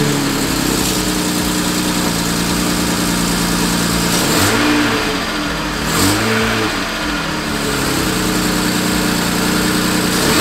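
BMW 135i E82's turbocharged straight-six idling just after start-up, given two brief blips of the throttle about four and six seconds in before settling back to idle. This is its first run after a new rocker cover gasket, and the owner says it is running like an absolute dream, the earlier misfire at tickover seemingly gone.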